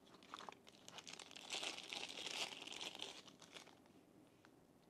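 Faint crinkling and rustling of knife packaging being handled, with scattered small clicks, thickest in the middle and dying away near the end.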